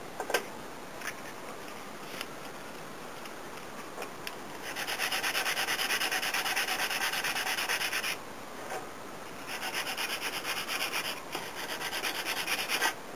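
Hand sanding of a folding knife's walnut handle scale with sandpaper, taking the surface down in rapid back-and-forth strokes. A few light clicks come first, then two runs of sanding with a short pause between them.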